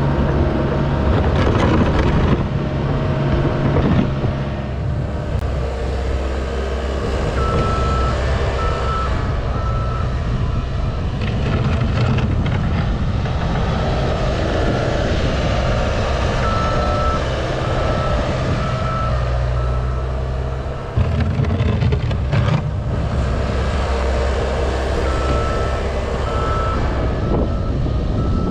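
Cat 242D skid steer's diesel engine running steadily while it plows snow. Its backup alarm beeps in three short runs of about four beeps as it reverses. The engine grows suddenly louder about two-thirds of the way through.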